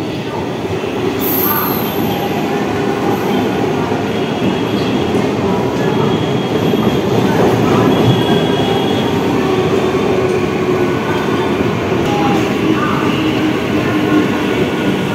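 Eastern Railway ICF-built EMU local train running past: a steady rumble of wheels on rail with thin squealing tones from the wheels, loudest around the middle as the coaches go by closest.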